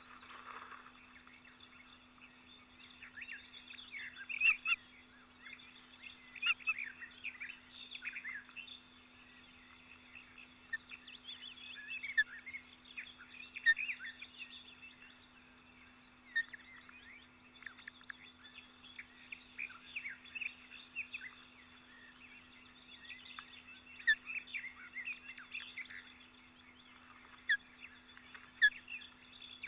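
Small birds chirping in many short calls that come in clusters, over a faint steady low hum.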